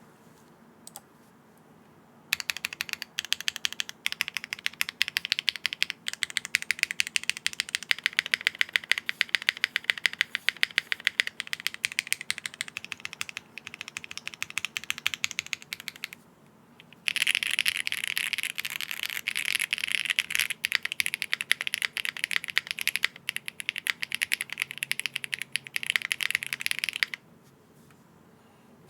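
Typing on a Bakeneko60 mechanical keyboard with Kailh BCP switches, a polypropylene plate, no foam and O-rings: rapid, continuous key clacks. Typing starts about two seconds in, pauses briefly around the middle, resumes faster and stops shortly before the end.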